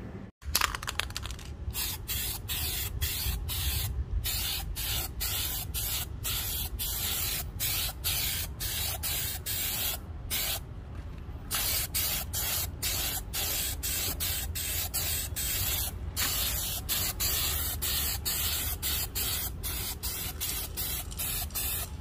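White spray paint hissing out of an aerosol can onto a wooden-framed wire-mesh lid, in quick short spurts about two or three a second, with a few longer pauses between runs of spurts.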